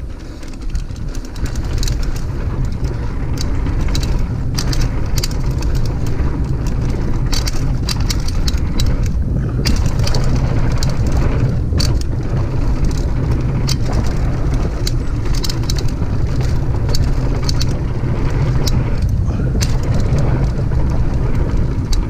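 Mountain bike ridden fast down a dry dirt trail: wind buffeting the action camera's microphone as a steady low rumble, over tyres rolling on dirt, with frequent sharp clicks and rattles from the bike and loose stones.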